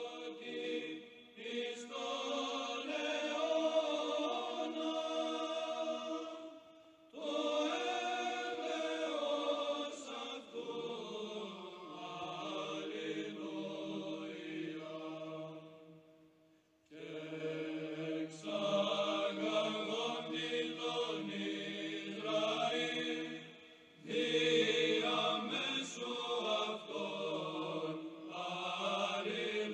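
Background music of a choir chanting slow, long-held phrases, with short breaks between the phrases.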